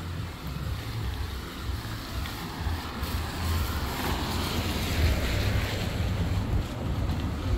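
Wind buffeting the microphone: an uneven low rumble with a hiss that swells midway through.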